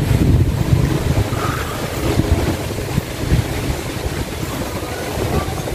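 Wind buffeting the microphone: a loud, uneven low rumble with a rushing hiss above it.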